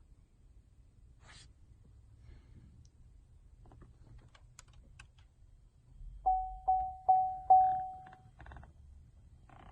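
Four quick electronic chime tones on one pitch, each struck sharply and fading, about 0.4 s apart, the last ringing a little longer. Faint clicks and taps come before them.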